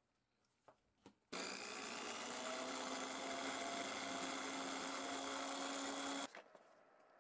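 Benchtop drill press running steadily with a small bit drilling a hole in a thin wooden board. The motor sound starts suddenly after a couple of faint taps and cuts off suddenly about six seconds in.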